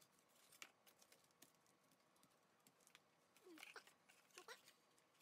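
Near silence with faint rustling and light taps of card stock as a paper pop-up box card is handled and unfolded, and a few faint short chirps a little past halfway.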